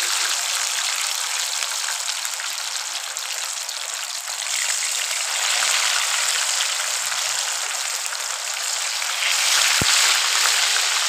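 Masala-coated fish pieces deep-frying in hot ghee in a pan: a steady, loud sizzle that grows louder about four seconds in and again near the end as more pieces go into the fat. A single short low bump comes shortly before the end.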